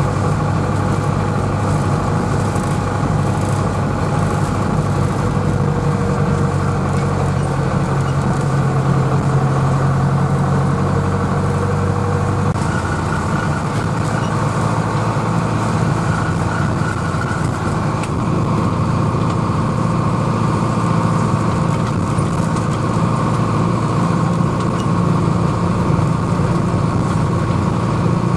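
International Harvester tractor engine running steadily as the tractor drives along, heard from inside its cab.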